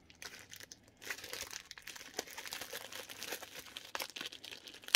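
Crinkling and rustling of packaging being handled as a wallet is unwrapped: a few faint rustles, then steady crinkling from about a second in.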